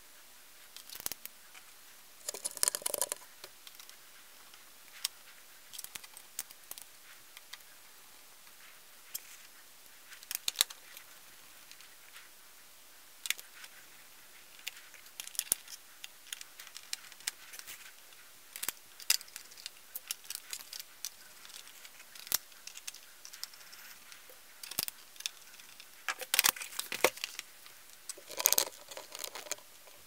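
Scattered small clicks, taps and short scrapes of a screwdriver driving screws into a laptop's plastic bottom cover, with louder rattling handling noises once near the start and twice near the end.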